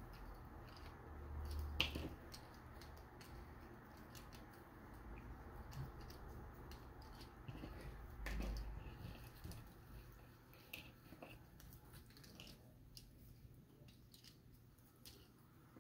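Cardboard jigsaw puzzle pieces being pulled apart by hand and dropped onto loose piles on a table: faint scattered clicks and light rustling. Two dull thumps come a bit under two seconds in and again about eight seconds in.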